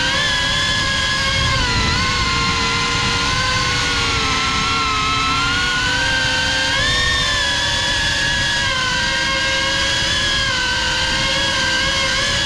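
GEPRC CineLog 35 cinewhoop FPV drone's motors and ducted propellers whining in flight, heard from the GoPro mounted on the drone, the pitch wavering up and down with the throttle over a noisy rush of prop wash.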